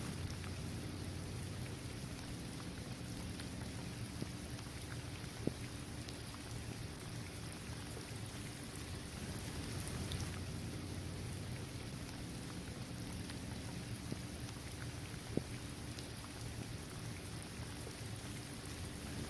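Steady rain falling on a basketball court, trees and grass, an even patter with two louder single drop hits.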